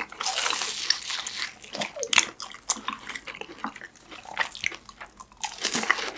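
Close-miked biting and chewing of fried BHC Ppuring cheese balls. A dense crackly crunch of the seasoned crust comes in the first second or so, then scattered smaller crunches as the chewing goes on.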